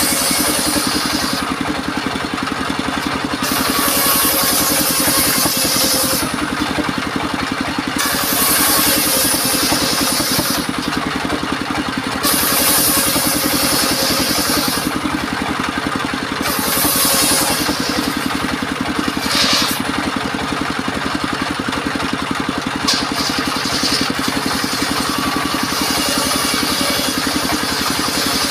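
Engine-driven circular sawmill running steadily while its blade rips timber into battens and rafters, the hiss of each cut coming and going in passes of two to three seconds, about every four seconds.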